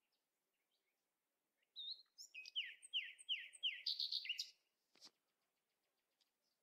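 A bird singing a quick run of repeated downward-slurred chirps for about three seconds, followed by a single sharp click.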